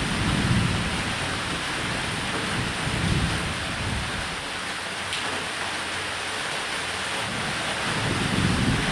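Steady rain on a roof with low rolls of thunder, swelling at the start, about three seconds in, and again near the end.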